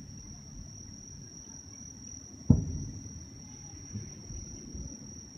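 Distant aerial firework shells bursting: one sharp boom about halfway through with a rumbling tail, a fainter thump a second and a half later, and another boom just at the end. A steady high-pitched tone runs underneath.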